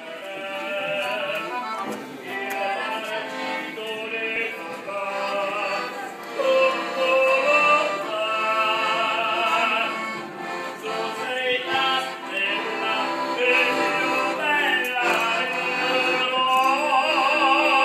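Operatic-style singing with a wide vibrato, accompanied by an accordion playing held chords: a gondola serenade from musicians aboard a gondola.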